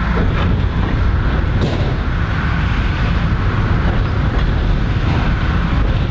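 Steady running noise of a moving narrow-gauge train heard from on board, strongest in the low end, with a few faint knocks.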